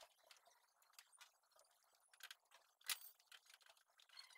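Faint scattered clicks and metallic clinks from hand tools working at a car's headlight mounting, with one sharper click about three seconds in.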